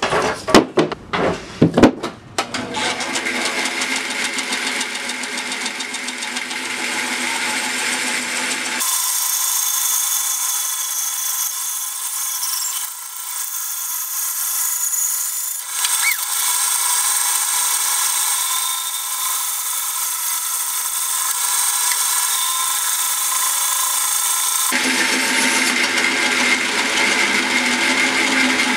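A few sharp knocks in the first two seconds, then a band saw running steadily as it cuts through a block of wood.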